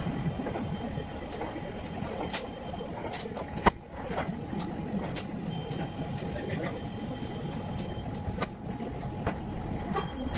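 Workshop noise: a steady hum with a few sharp knocks, the loudest a little over a third of the way in. A thin high whine comes on twice, for a few seconds each time.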